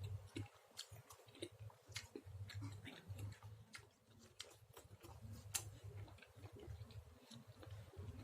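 Faint, irregular wet clicks and smacks of someone chewing chicken, over a steady low hum.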